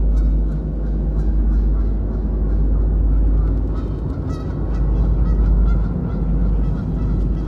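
Geese honking repeatedly, a string of short honks, over a steady low rumble.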